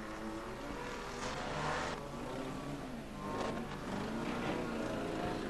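Engines of demolition derby cars racing round the track, their pitch rising and falling as they lap.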